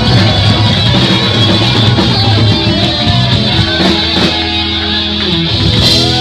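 Heavy metal band playing loud, with a distorted electric guitar to the fore over bass and drums. About halfway through, the guitar settles into held, ringing notes.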